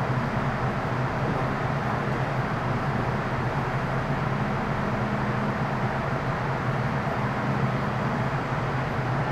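Steady hum inside a stationary MTR Metro Cammell M-Train electric multiple unit, held between stations waiting to depart. Its onboard equipment runs with an even low drone and a wash of noise, with no traction motor or wheel sounds.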